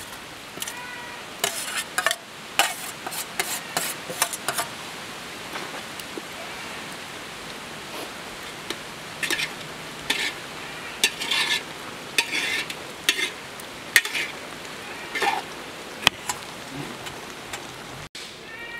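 Coconut paste scraped with a spoon off a metal plate into a large metal pot of boiling vegetables, then stirred in by hand. Quick scraping clicks and wet splashes over the steady bubbling of the pot.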